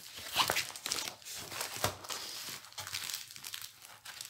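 Small clear plastic packet crinkling as it is handled, in short irregular rustles.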